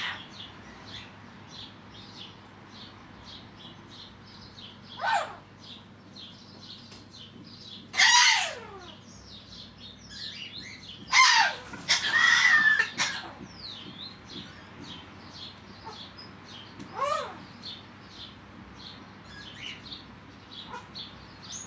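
Corella calling in loud separate bursts, several falling in pitch, with one longer stretch of calling in the middle, over a steady twitter of small bird chirps.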